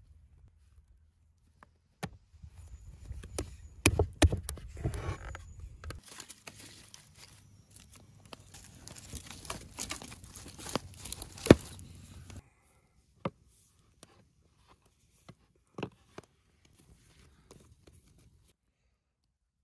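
Wood fire of burning branches crackling with many sharp pops for about ten seconds, then cutting off abruptly; afterwards only a few faint isolated clicks.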